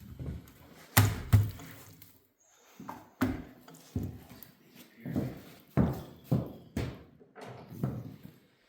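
Irregular knocks and thunks of hand tools and parts being handled on a Chevy 350 small-block during teardown, about a dozen in all, the loudest two close together about a second in.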